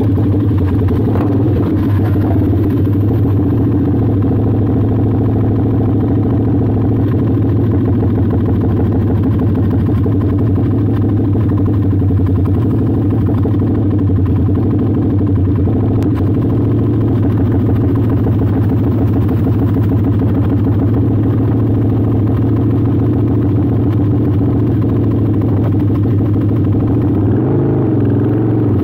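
A drag bike's engine idling steadily at one pitch, wavering slightly near the end.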